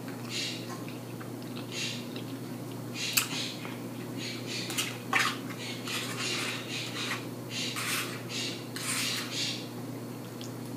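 Close-up eating sounds: loud chewing and lip-smacking, with a fork scraping and clinking on the plate. Two sharp clinks, about three seconds and five seconds in, are the loudest.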